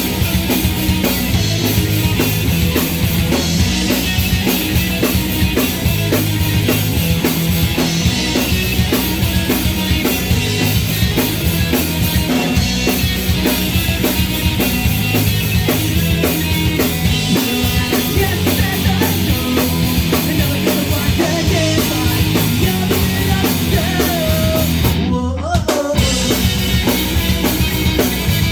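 Punk rock band playing an instrumental passage, with a drum kit keeping a steady beat under bass and guitars. The band cuts out for a split second near the end and comes straight back in.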